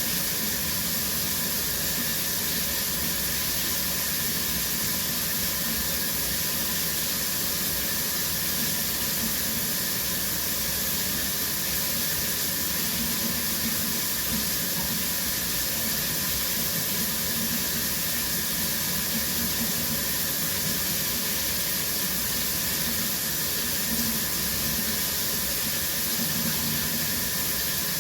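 Shower running steadily, its spray hissing down into the stall.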